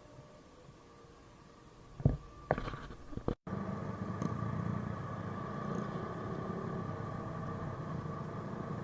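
A few loud knocks, then after a sudden cut a Yamaha Mio Sporty scooter's small single-cylinder engine running steadily.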